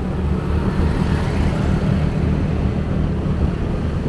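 Motorcycle engine running steadily at cruising speed from the rider's point of view, a continuous low hum over road and traffic noise.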